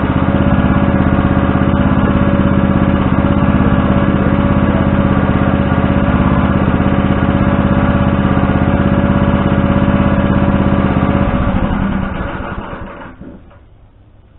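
An engine running steadily at idle, which winds down and shuts off about twelve seconds in.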